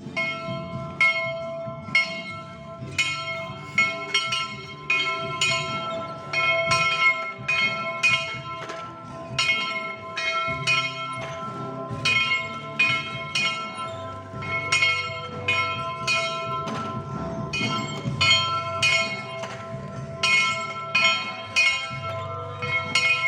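Church bell rung by pulling its rope, the clapper striking about twice a second and the bell's tones ringing on between strokes: the first bell, calling people to the service.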